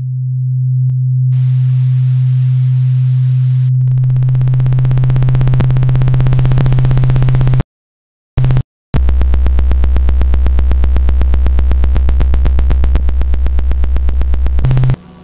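Synthesized electronic sound design. A steady low hum fades in and is joined by hiss, then breaks into a rapid buzzing pulse. It cuts out for about a second just past halfway, returns as a lower, pulsing buzz, and stops abruptly near the end.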